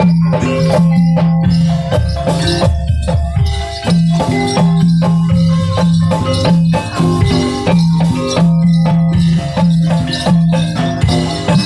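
Live jaranan accompaniment: Javanese gamelan-style music with rapid struck metallophone notes and drum strokes over a low held note.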